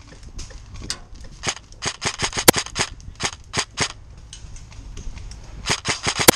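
Airsoft electric rifle (VFC Avalon Calibur AEG) firing single shots on semi-auto as sharp cracks in quick, irregular strings. A run of about a dozen shots comes through the middle, then a faster cluster near the end.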